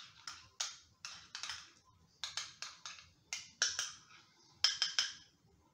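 Metal utensil clinking and scraping against a glass bowl as a rice and stew mixture is stirred: a quick, irregular run of sharp clicks that stops near the end.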